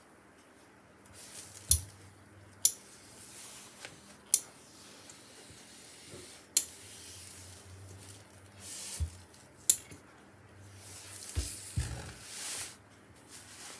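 Hose-fed steam iron pressing a seam on fabric: bursts of steam hiss, with about five sharp clicks and a few soft thumps as the iron is worked and set down.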